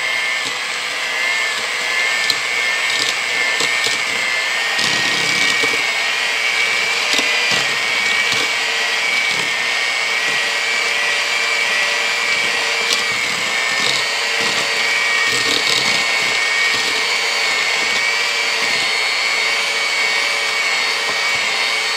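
Hamilton Beach electric hand mixer running at a steady speed, its metal beaters creaming butter, sugar and egg yolks in a stainless steel bowl: a constant motor whine with a few faint clicks.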